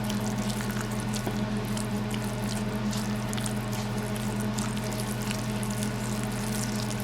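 Spoon stirring a wet flax-meal and water batter in a bowl, with scattered soft wet clicks and squelches, over a steady low hum.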